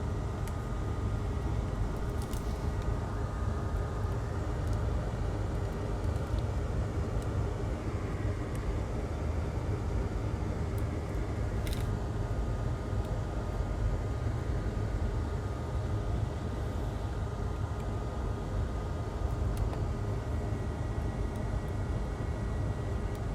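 Steady low background hum with a faint high whine over it, and a couple of faint clicks about two seconds in and near the middle.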